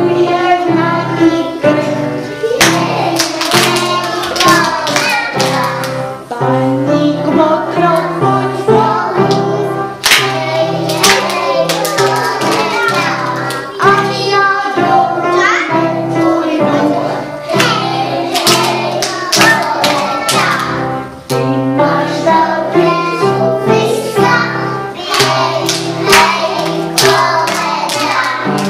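Children singing along to a recorded backing track of a children's song with a steady beat.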